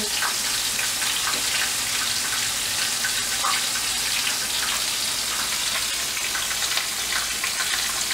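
Flour-dredged fish fillet frying in hot oil in a frying pan: a steady sizzle with scattered small crackles.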